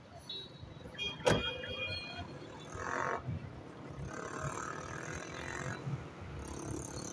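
Busy outdoor car park ambience with people's voices and vehicle background. About a second in comes a single sharp knock with a brief ring, the loudest sound.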